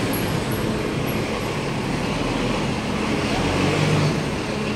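Road traffic noise from cars passing on a city street, steady, swelling slightly near the end.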